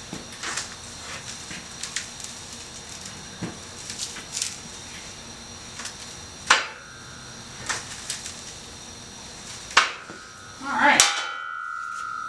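Homemade angle-iron sheet metal brake swung to bend a thin 5052 aluminum sheet: scattered light clicks and knocks of steel and sheet, sharper clanks about six and a half and ten seconds in, and a loud metallic clang near eleven seconds followed by a steady ringing tone.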